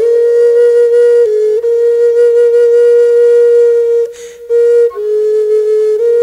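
Solo Native American flute playing a slow melody, holding one long note for about four seconds, then a short pause for breath, then stepping down to lower held notes.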